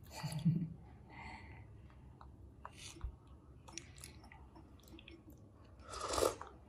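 Soft sucking and lip-smacking of a baby macaque drinking milk through a plastic straw, with small clicks throughout and one louder slurp near the end.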